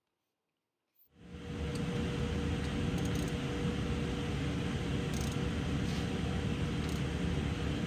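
A steady fan-like mechanical drone with a constant hum fades in about a second in. A few faint clicks of a wrench on the tractor's oil drain plug sound over it.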